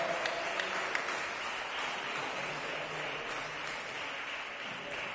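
A small crowd of spectators clapping to applaud a won point in a table tennis match. The clapping tails off toward the end.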